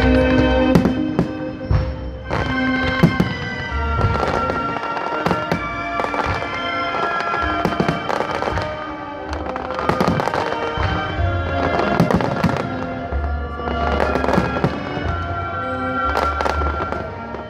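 Aerial fireworks exploding, with many bangs in quick succession and low rumbling, while music plays alongside.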